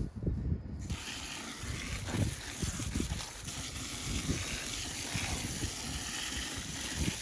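Water spraying from a garden hose nozzle into a post hole to wet dry-poured fast-setting concrete mix in place: a steady hiss that starts about a second in, with low thuds underneath.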